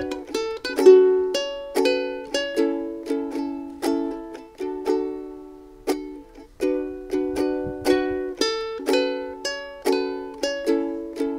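Ukulele fingerpicked in a repeating arpeggio pattern, single plucked notes ringing into one another, with a brief pause about six seconds in before the pattern starts again.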